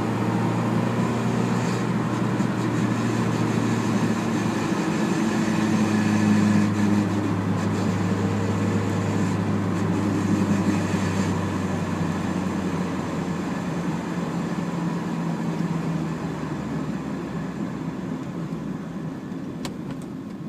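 Mazda MX-5 drivetrain running as the car decelerates, the noise that has appeared on deceleration since the clutch was replaced. Several steady tones hold, then sink in pitch and fade over the last several seconds as the car slows.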